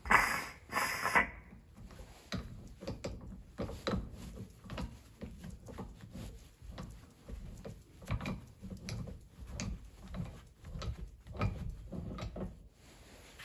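Irregular light clicks and knocks of metal parts and tools being handled at the end cap of a hydraulic cylinder held in a bench vise, after two short, louder noisy bursts at the start.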